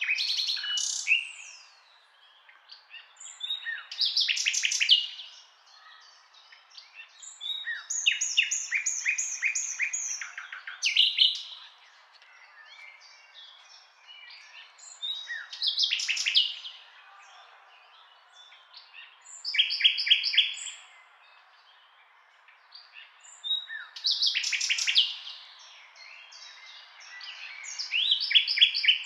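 Bird song: short phrases of rapid chirps and trills, one every four seconds or so.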